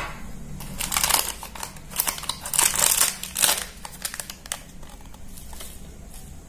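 Crinkling plastic: the inner liner of a baking powder tub is handled while a steel spoon scoops from it. There are several rustling bursts in the first half, then only faint scattered clicks.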